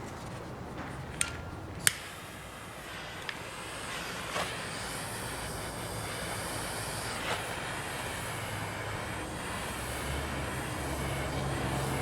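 Small handheld butane torch hissing steadily as it heats heat-shrink tubing on a shift cable, with two sharp clicks near the start.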